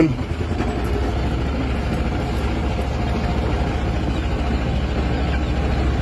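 Small utility vehicle's engine running steadily as it drives, a low, even drone.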